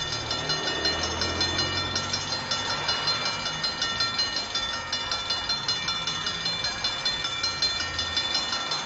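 Diesel locomotive pushing a snowplow through snow on the track: a low engine rumble and a continuous rush of snow, with a steady high-pitched ringing tone over it.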